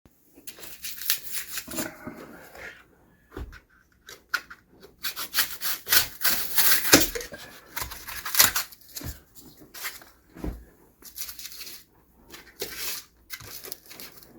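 Styrofoam insulation being trimmed at a window frame: irregular rubbing and scraping strokes, busiest and loudest around the middle.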